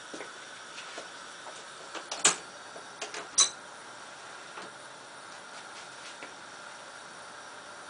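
Steady hiss of a gas hob burner heating a glass beaker of foaming linseed oil, with scattered faint ticks and two sharp clicks about two and three and a half seconds in.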